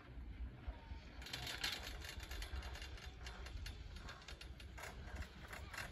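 Riding an SLI double chairlift: a steady low rumble with irregular clicking and clatter from about a second in, from the haul rope and chairs running over the tower sheaves.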